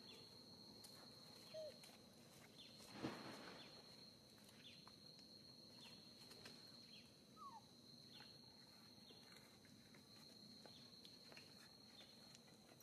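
Near silence: faint outdoor ambience with a steady high-pitched tone, scattered faint ticks, a louder knock about three seconds in, and two brief squeaks, the second falling in pitch.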